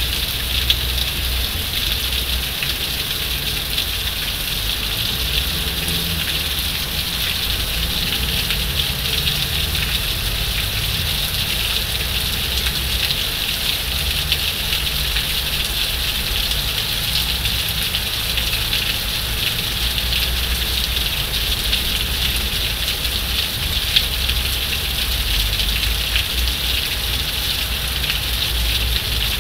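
Heavy rain falling steadily in a downpour, an even hiss of drops with a low rumble underneath.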